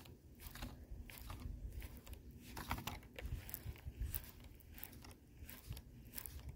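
Fishing reel being cranked to retrieve a cast lure, a faint run of soft crunchy clicks about three a second.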